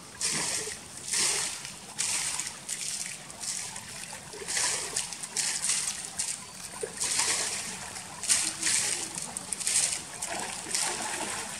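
Water splashing and sloshing in repeated bursts as two Japanese black bears wrestle in a pool.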